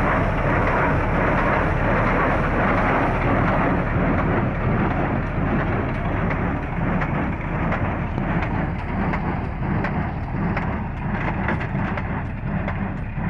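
Square straw baler running with a steady, loud mechanical noise. From about four seconds in, a quick series of sharp knocks rides on top of it.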